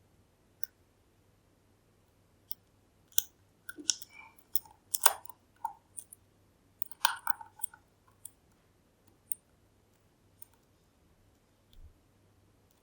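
Small sharp metallic clicks and taps of lock picking tools working in a Kale Kilit 10-pin dimple lock: a few lone clicks, then a dense flurry in the middle, then sparse single clicks again.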